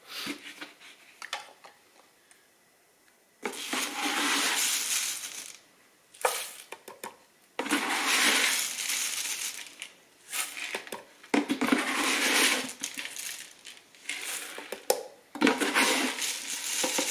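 Dry old-fashioned rolled oats poured into a blender jar, a grainy rustling hiss that comes in four separate pours of two to three seconds each.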